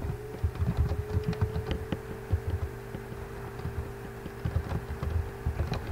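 Computer keyboard typing: irregular key clicks and soft knocks, over a steady electrical hum.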